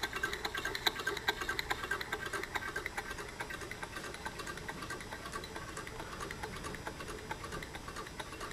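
Homemade low-temperature-difference Stirling engine running, its moving parts making a light, rapid mechanical ticking.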